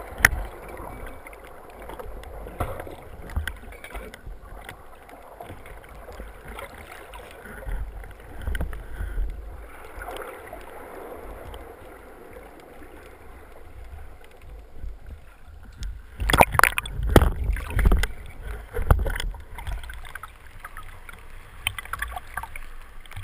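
Muffled water rumble and scattered handling knocks, heard through a GoPro's waterproof housing underwater. About sixteen seconds in comes a cluster of loud splashes and knocks as the spearfisher breaks the surface, followed by choppy sea sloshing around the camera.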